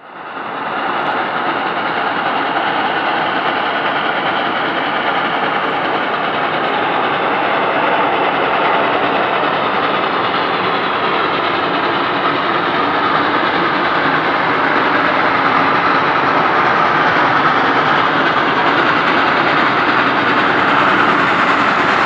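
A train running, heard as a steady, even rushing rumble that fades in over the first second.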